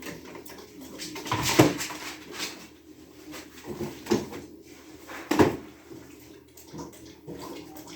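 Kitchen handling noises while an egg is fetched: scattered knocks and clatter of things being moved. Three sharper knocks come about one and a half, four and five and a half seconds in, the last the loudest.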